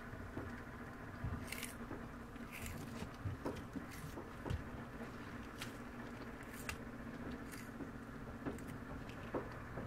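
Babcock leopard tortoise biting and tearing lettuce leaves: about half a dozen crisp, irregular crunches spread over the stretch, with a steady low hum underneath.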